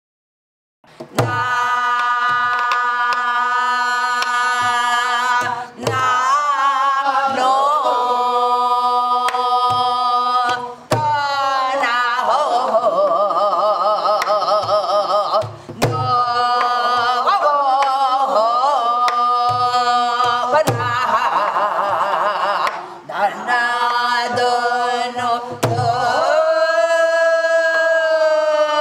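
A woman singing gueum, Korean wordless vocal mouth-music, in long held notes with wide vibrato, over a drum beating out a gutgeori rhythm. It starts about a second in.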